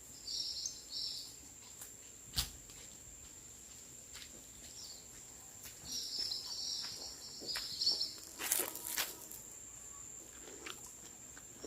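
Small birds chirping in two short high bursts, over a steady high-pitched insect-like whine, with a few sharp clicks about two and a half seconds in and again around eight and a half seconds.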